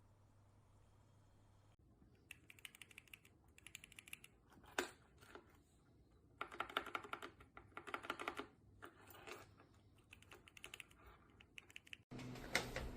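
Gateron mechanical keyboard switches on a keychain switch tester being pressed repeatedly, in quick runs of clicks beginning about two seconds in, with one louder click near the five-second mark. Near the end the clicking gives way abruptly to a steady low hum.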